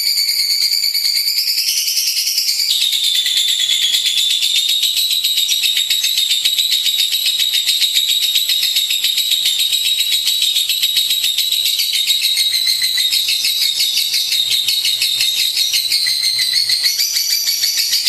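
Lovebird singing a long, unbroken stream of rapid, high-pitched chattering trills, the continuous 'ngekek' song that bird keepers play to train their own lovebirds.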